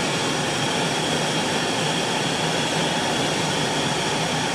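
A car's air-conditioning blower running on high inside the cabin: a steady, even rush of air with a faint low hum under it.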